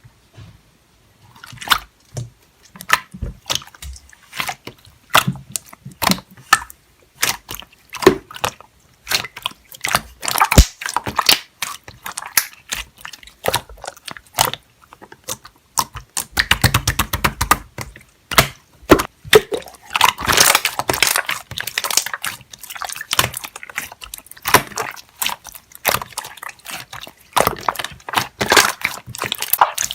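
Slime being played with by hand: wet, sticky clicks and pops as it is squished, stretched and poked, with a quick run of rapid clicks about halfway through.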